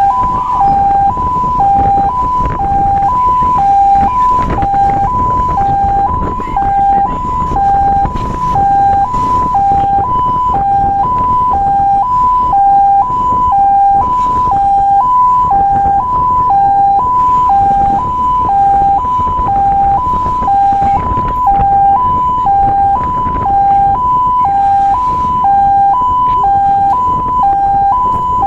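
Fire truck's electronic two-tone siren sounding at close range, alternating evenly between a high and a low note about every two-thirds of a second, with a low rumble of engine and road noise beneath.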